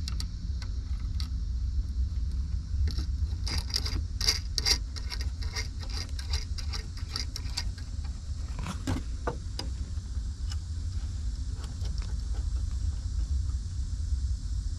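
Small metal clicks and taps of a lock washer and nut being fitted and turned onto a mounting bolt, in irregular clusters, over a steady low rumble.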